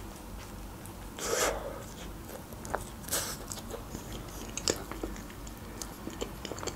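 Biting into and chewing a slice of pizza close to the microphone: two louder crunches of the crust, about a second in and about three seconds in, with small mouth clicks between.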